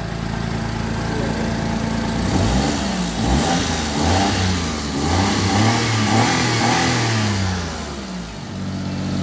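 Suzuki Alto engine idling, then revved up and let fall back several times before settling to idle again near the end. It now starts and runs after a torn fuel pump gasket and seal that were starving it of fuel pressure were repaired.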